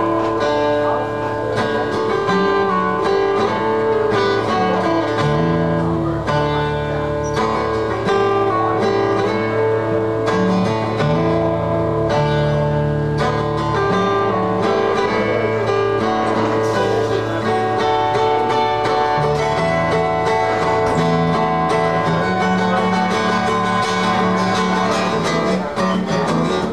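Acoustic guitars played live, an instrumental passage of quick picked notes over a moving bass line.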